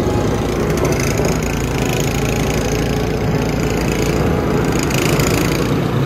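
Single-stage snow blower running steadily while clearing snow.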